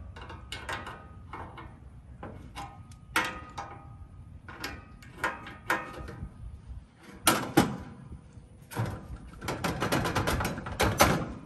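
Metal clicks, knocks and clinks as a condenser fan blade's hub is worked loose with a wrench and pried off the fan motor shaft, some strikes ringing briefly. A dense run of rapid clicking comes near the end.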